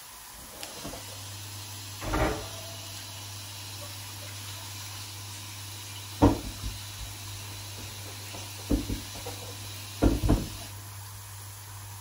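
Several short knocks and bumps of kitchen handling, the loudest about six seconds in and a close pair near the end, over a steady low hum that starts about a second in.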